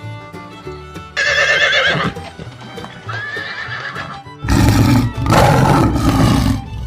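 Horse neighing several times over light background music: two quavering whinnies in the first half, then a longer, louder, rougher neigh from about halfway to near the end.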